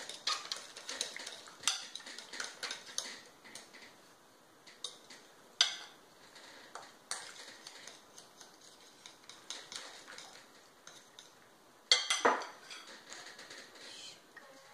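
A fork stirring and scraping sticky fondant mixture in a glass mixing bowl, with repeated sharp clinks of the tines against the glass. A louder knock comes about twelve seconds in.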